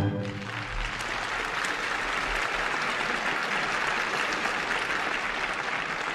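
Theatre audience applauding steadily after a ballet variation, as the last orchestra chord dies away in the first moment.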